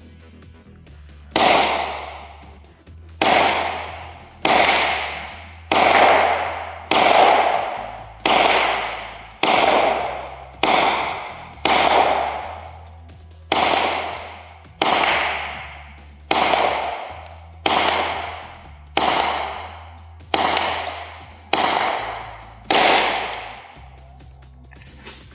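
ASG Bersa BP9CC CO2 blowback airsoft pistol firing about seventeen single shots, roughly one every 1.3 seconds. Each sharp crack echoes and dies away in a large concrete hall.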